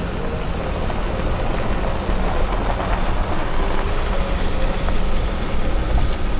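Steady rumble of road and engine noise from a vehicle being driven.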